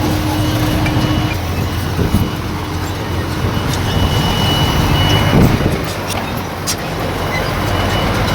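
Diesel engine of heavy earthmoving machinery running steadily, with a brief swell in level about five seconds in.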